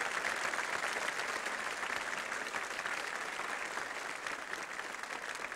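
Studio audience applauding steadily, greeting an actress's entrance onto the stage.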